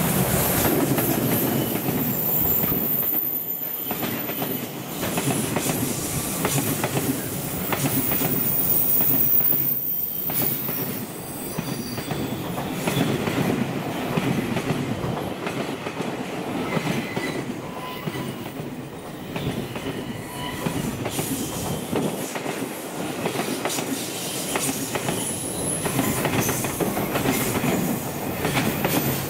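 Container freight train rolling past close by: an EF210 electric locomotive at the start, then a long string of Koki container flat wagons. The wheels clatter over rail joints in a steady run of clicks, with a thin high wheel squeal at times.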